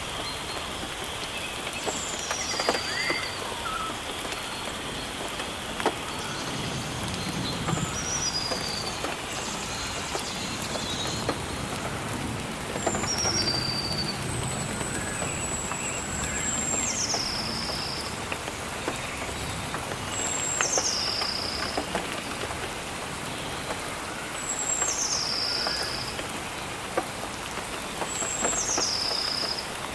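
Steady rain falling on foliage, with scattered drips and a bird repeating a high call that drops in pitch in two or three steps, roughly every four seconds.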